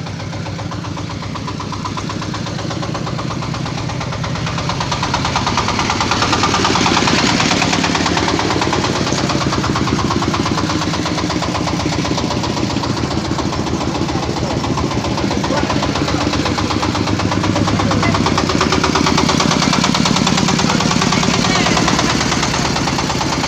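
Motorcycle engine running steadily, its revs raised a few seconds in, easing off, then raised again later.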